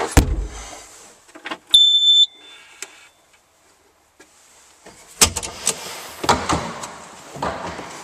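Skid steer cab sounds: a thump as the low engine rumble dies away, then a single high electronic beep lasting about half a second. After a quiet spell, from about five seconds in, a run of knocks and rattles of someone handling the cab and climbing out.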